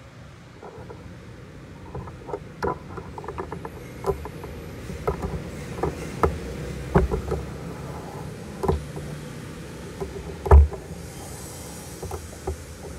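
Motorbike traffic on a busy road just outside, a steady rumble of motorbikes riding past, with many sharp clicks and knocks on top, the loudest about ten and a half seconds in.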